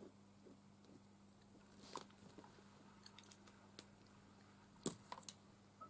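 Near silence with a faint steady hum, broken by a few small clicks and taps of fineliner pens being handled on a craft table; one sharper click about five seconds in.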